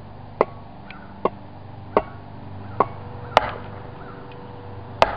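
Hammer striking a 2x4 board laid across the top of a steel mailbox-post spade, six sharp blows, the last after a longer pause, driving the spade into the lawn.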